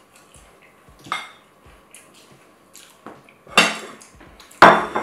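Close-up clinks and clatter of a plate being handled during a meal. There are faint clicks, a sharp clink about a second in, and two loud clattering hits near the end.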